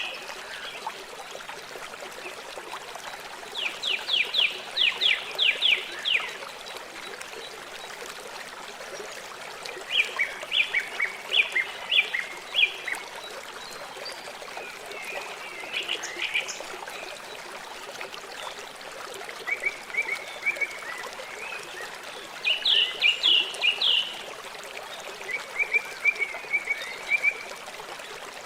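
River water flowing steadily. Over it, a bird calls every few seconds in short runs of rapid high chirps.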